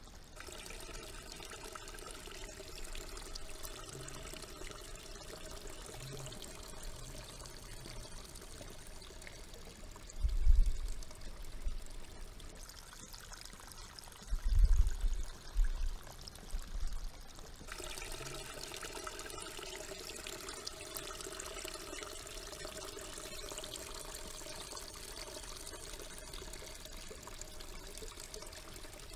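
Water pouring and trickling steadily. Dull low thumps interrupt it, one about ten seconds in and a short cluster around fifteen seconds.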